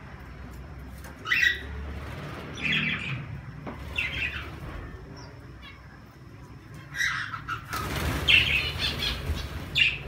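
Mixed aviary birds (cockatiels, budgies and zebra finches) calling: a string of short, sharp squawks and chirps, with louder calls near the end. About three-quarters of the way through comes a flurry of flapping wings as a bird flies in to the perch.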